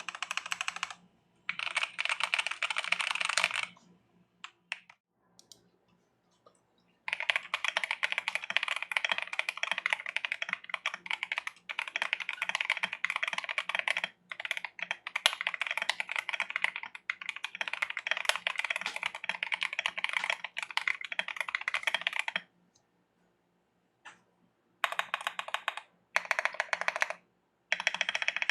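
Rapid typing on a mechanical keyboard as a keycap sound test: two short bursts, a few scattered keystrokes, then a long unbroken run of about fifteen seconds. After a pause of about two seconds come more short bursts near the end.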